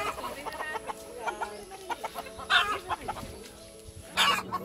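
Rooster giving a few short, loud clucking calls.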